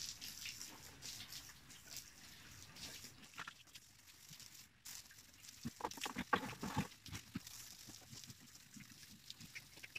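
Weak-pressure water from a hose fed by a water pump, spraying as pigs are bathed, with pigs grunting faintly; a cluster of their calls comes about six seconds in.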